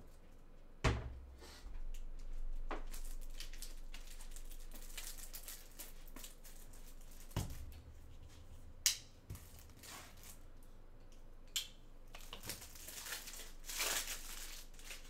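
Plastic rustling and crinkling as supplies are handled, broken by several sharp knocks and taps.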